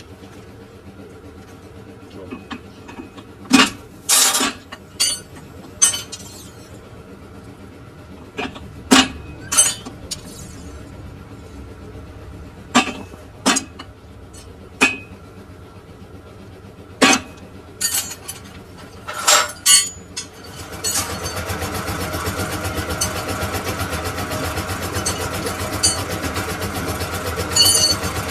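Steel parts and tools clanking and clinking, a dozen or so sharp separate knocks. About three-quarters through, a machine starts and keeps running with a steady, fast rattling hum.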